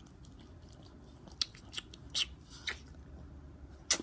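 About five short, crisp kissing smacks made with puckered lips on a small dog's head, spread over the second half. The loudest comes near the end.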